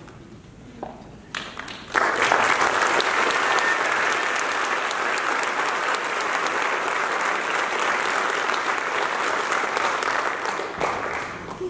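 Audience applauding: a few scattered claps, then full applause starting suddenly about two seconds in, holding steady and dying away near the end.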